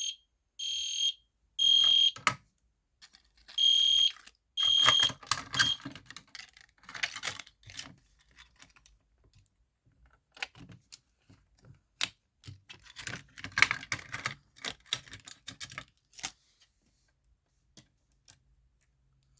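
EST Genesis fire alarm horn sounding high-pitched blasts in the three-pulse temporal evacuation pattern: three short blasts, a pause, then three more before it cuts off about six seconds in. A run of scattered small clicks and rattles follows.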